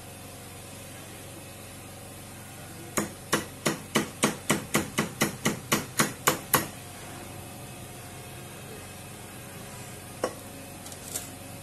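Wire whisk knocking against the side of a glass mixing bowl while beating cake batter: about a dozen quick knocks, about three a second, then one more a few seconds later.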